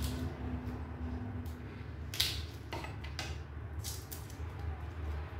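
Garlic cloves crushed under the flat of a kitchen knife on a countertop and their papery skins peeled off by hand. A few sharp clicks and crackles, the loudest a little after two seconds in.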